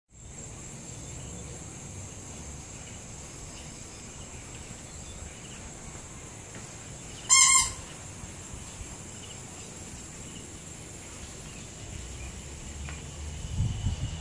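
A steady, high-pitched insect drone fills the background, broken about halfway through by one short, loud bird call. Low rumbling comes in near the end.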